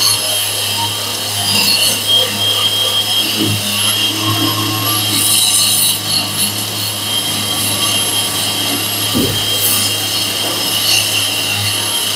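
Boda brushless wall chaser running steadily, its blades grinding a groove into a wall, with a constant high whine over a low hum.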